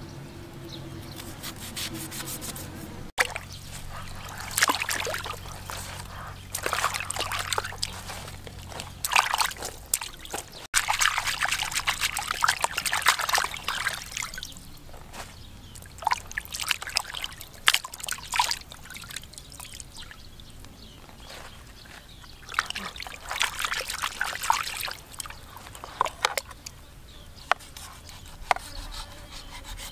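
Water sloshing and splashing in a plastic basin as hands wash pieces of raw shark, with irregular splashes and scrapes. Early on, a knife cuts and scrapes the shark on a wooden board.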